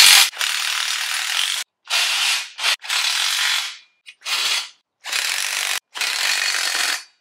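DeWalt cordless impact driver with a socket running bolts down tight on a steel motorcycle wheel carrier. It runs in about seven short bursts, each a fraction of a second to about a second long, that stop sharply, with brief pauses between them.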